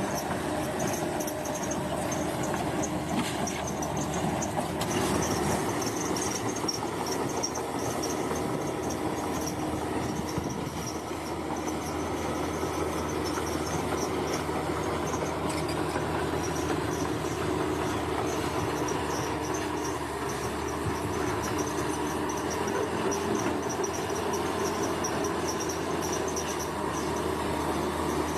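Heavy earthmoving machine's diesel engine running steadily under load, with a rumbling, clanking drone, while insects chirp continuously at a high pitch.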